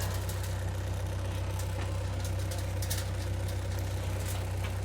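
Diesel engine of a tracked backhoe idling steadily, a low even hum with a few faint clicks over it.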